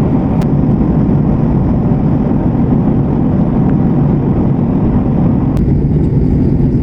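Steady low rumble of a moving vehicle, road and engine noise with no distinct events.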